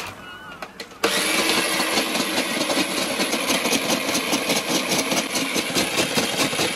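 Ice gola (shaved-ice) machine switched on about a second in, running steadily and grinding ice with a dense, rapid rattle.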